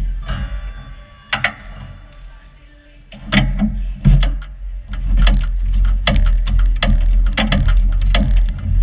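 A wheelbob (wheeled summer bobsled) setting off down a concrete bobsleigh track. A few knocks come first, then from about five seconds in its wheels rumble steadily on the concrete with a quick clattering rattle.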